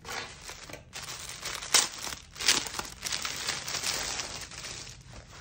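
Clear plastic polybag crinkling and rustling as it is handled and opened and a T-shirt is pulled out of it, with two sharper, louder crackles about two and two and a half seconds in.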